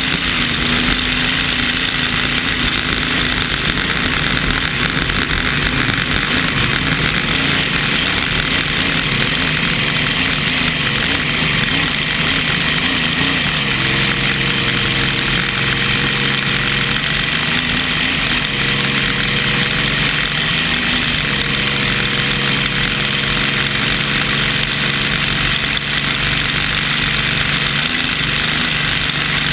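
Vintage unlimited hydroplane running at speed, heard from an onboard camera: a steady engine drone under heavy rushing wind and spray noise. The engine note shifts about halfway through and again a few seconds later.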